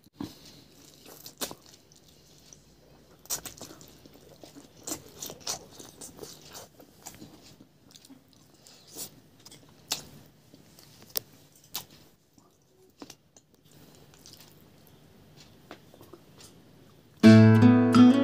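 Close-up chewing and biting of food eaten by hand, with scattered sharp crunches and mouth clicks. About a second before the end, strummed acoustic guitar music starts suddenly and loudly.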